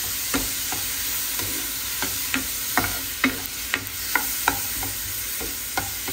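Diced tomato and onion sizzling in a little oil in a frying pan, with a black plastic spoon stirring and knocking against the pan in short, irregular clicks.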